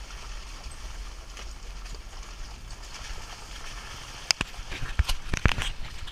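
Jeep Wrangler crawling along a rough wooded dirt trail: a low steady rumble, then a quick run of sharp clacks and knocks starting about four seconds in and lasting a second and a half.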